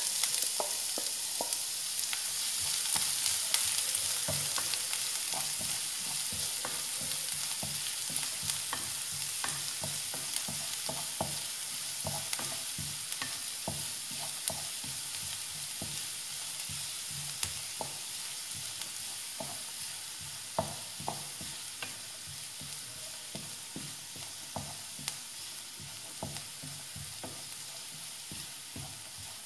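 Chopped onions sizzling in hot oil in a non-stick frying pan, stirred with a wooden spatula that clicks and scrapes against the pan many times. The sizzle grows slowly quieter.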